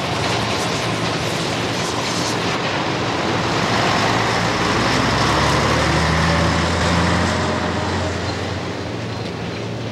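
Heavy industrial machinery and engine noise: a steady din with a low engine hum that swells louder around the middle and then eases off.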